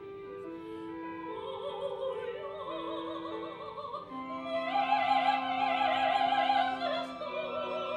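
A female opera singer singing with wide vibrato over a small chamber ensemble of strings holding sustained notes. The voice comes in about a second in and climbs higher and louder around the middle.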